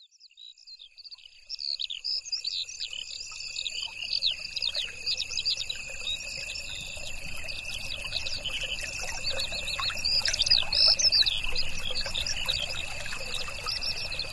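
Many birds chirping and trilling together over a steady, high insect drone, fading in from silence over the first two seconds.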